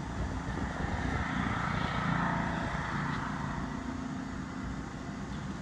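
Engine hum of a passing motor vehicle, swelling to its loudest about two seconds in and then fading.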